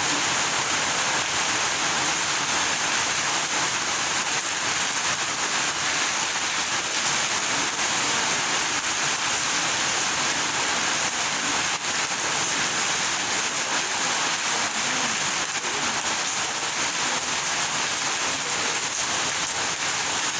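Steady rain falling: an even hiss of countless drops with fine pattering ticks, unchanging throughout.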